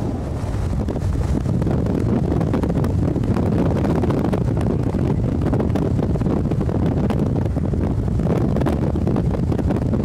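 Strong wind rumbling across the microphone: a loud, steady, low noise with faint scattered ticks through it.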